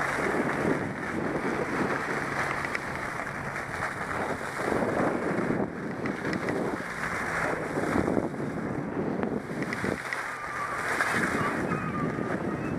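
Skis sliding and scraping over packed snow on a downhill run, mixed with wind buffeting the microphone: a steady, loud rushing noise.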